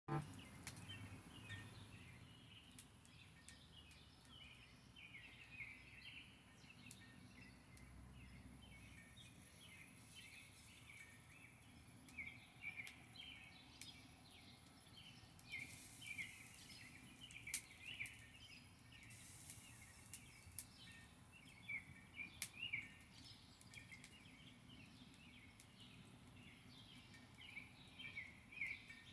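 Faint, busy chorus of many small birds chirping without pause, with a few sharp crackles and two short hissing bursts.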